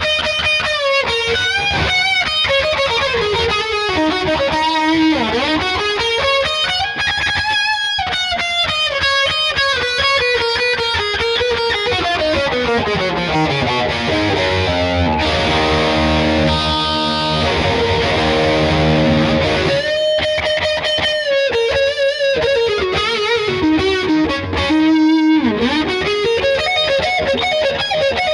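Schecter Hellraiser Extreme C-1 electric guitar with EMG 81/89 active pickups, played with a distorted tone: fast lead runs and sweeping melodic lines up and down the neck, with a few seconds of held notes about halfway through.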